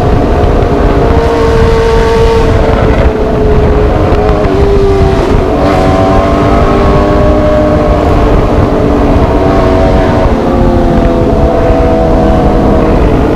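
Motorcycle engine and exhaust running at steady riding revs, the pitch drifting gently up and down, over a heavy low rumble.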